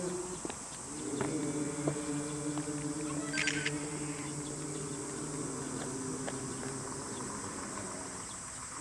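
Men's chorus chanting a Jizo goeika (Buddhist hymn) in long, drawn-out low notes, held steadily in a slow, stretched melody.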